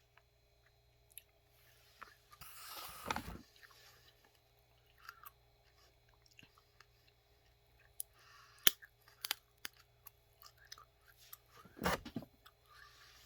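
A person biting and chewing a cold, partly soggy leftover chicken wing, close to the microphone, with scattered wet mouth sounds and a few sharp clicks.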